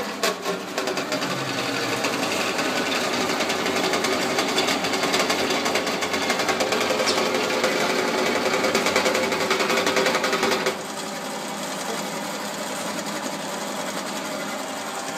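Electric drain-cleaning machine running, its spiral steel cable spinning and rattling inside a blocked toilet drain pipe. The noise builds a little, then drops suddenly about two-thirds of the way through and carries on quieter.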